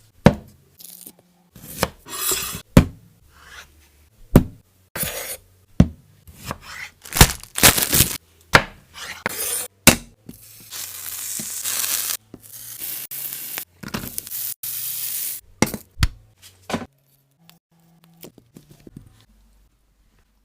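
Kitchen food-preparation sounds: a quick run of sharp knocks, clicks and scrapes, with a couple of longer hissing stretches in the middle, dying away over the last few seconds.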